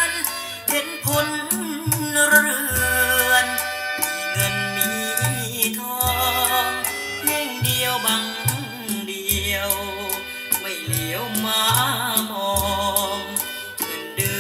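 Music with repeated bass notes, sharp percussion strikes and a wavering melody line, played back through a pair of Victor S-D11 vintage three-way speakers with 8-inch woofers, for a listening test.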